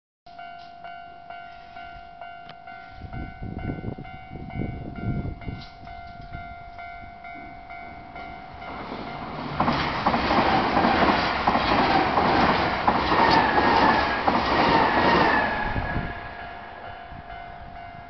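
Level-crossing warning bell ringing, a steady repeated electronic clang. About ten seconds in a Nankai electric train passes over the crossing, its wheels clattering on the rails for about six seconds, louder than the bell.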